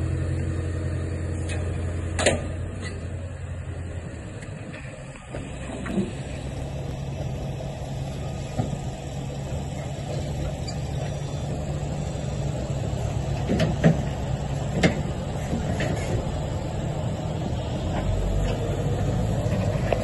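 JCB telehandler's diesel engine running steadily as it tows a trailer down off a low-loader, with a few sharp clanks along the way.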